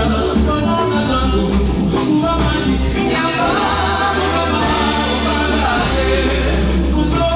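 Live band music with singing over it and a steady bass underneath.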